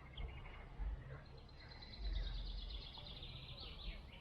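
Birdsong: a quick run of high chirping notes, over a low uneven rumble.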